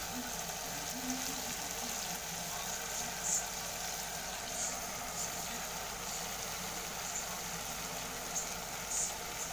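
Beef and tomato stew sizzling in an aluminium pot: a steady hiss with small crackling pops every second or two.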